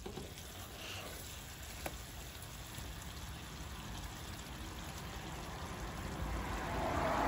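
Thick fish curry simmering in a wide pan, with a slotted spatula moved gently through it: soft wet bubbling and stirring, a light tap about two seconds in, swelling louder near the end.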